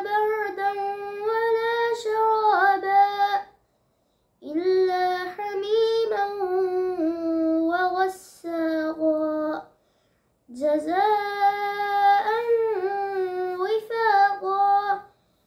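A boy chanting Quranic recitation in Arabic in a high, melodic voice, with long drawn-out notes. Three long phrases with short breaths between them.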